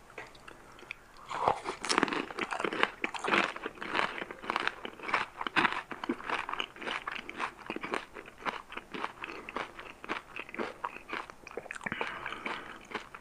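Crisp, hollow puri shell (pani puri) bitten about a second in, followed by a fast run of crunching and chewing that is loudest at first and then grows softer.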